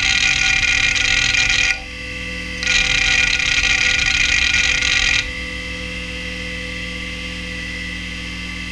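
Quantum Bigfoot CY 3240AT 5.25-inch hard drive's heads seeking rapidly in a loud, busy chatter during a SpinRite benchmark, on a drive near the end of its life. The chatter breaks off for under a second about two seconds in, resumes, and stops about five seconds in. After that only the steady whine of the 3600 rpm spindle remains.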